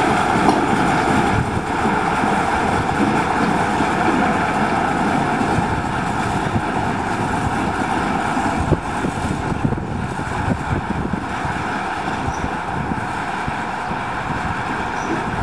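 TU2 narrow-gauge diesel locomotive's V12 diesel engine running steadily as the locomotive moves slowly along the track, with a single knock about nine seconds in.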